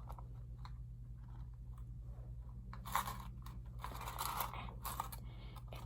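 Faint scattered clicks and short rustles of small objects being handled, over a steady low electrical hum.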